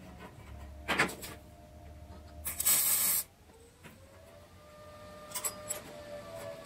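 A hammer knocks once on the steel spring latch of a grill frame about a second in, ringing briefly, followed by a loud half-second scrape of metal and, near the end, a few light clicks as the latch is worked by hand.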